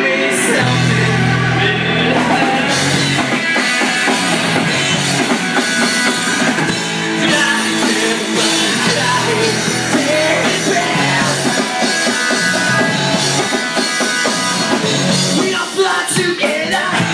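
Live rock band playing, with bass guitar, electric guitar and drum kit; the drum hits grow sharper near the end.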